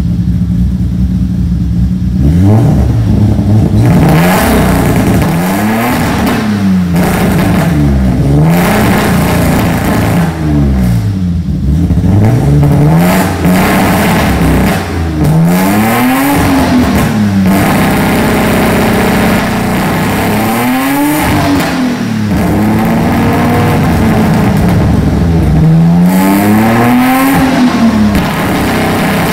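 BMW E30's engine and exhaust, the car standing still, blipped repeatedly: about eight times the revs climb and fall back toward idle, every few seconds.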